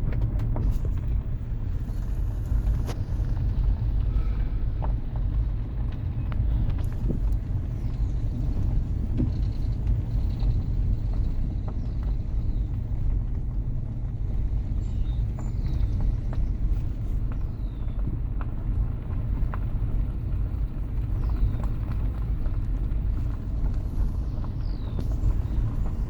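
A steady low rumble fills the background, with faint, brief bird chirps scattered over it throughout.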